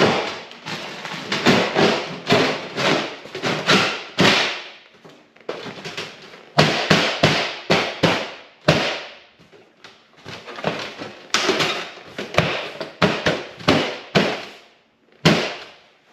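Corrugated galvanized steel sheet being pushed and pressed into place by hand against the wall, giving an irregular series of metallic knocks, taps and thumps.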